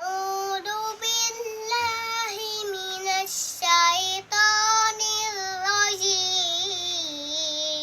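A child's high voice chanting in the melodic style of Quran recitation, drawing out long held notes that bend and waver, with a few short breaks for breath.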